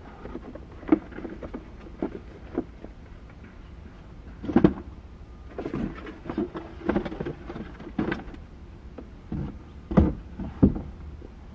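Irregular knocks, bumps and rustles from someone working around a parked car, handling things at its doors and seats. Two of the knocks, about halfway through and near the end, stand out. A steady low rumble runs underneath.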